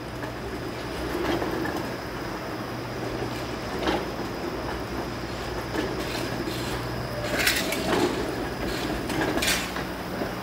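Street traffic: a steady low vehicle hum under general road noise, with several sharp clicks and knocks in the second half.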